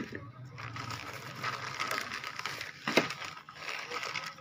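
Clear plastic bags crinkling and rustling under a hand handling bagged accessories, with a sharper crackle at the start and again about three seconds in.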